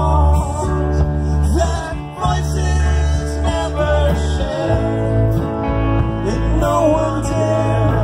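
Live rock band playing an instrumental passage: electric guitar, bass guitar and drums under a wavering lead melody.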